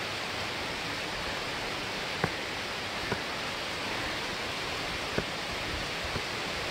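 Steady rushing of Benton Falls heard from the trail, with a few light footfalls on the rock steps and dirt path.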